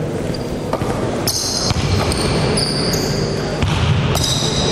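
A basketball bouncing on a hardwood gym floor, with high shoe squeaks in the middle and again near the end.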